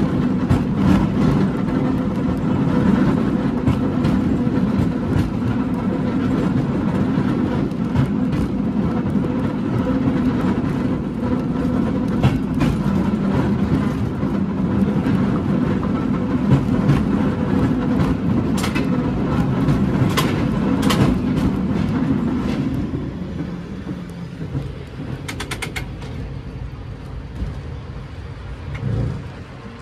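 San Francisco cable car running along its line: a steady rumble with clanks and rattles, growing quieter about three-quarters of the way through as the car slows.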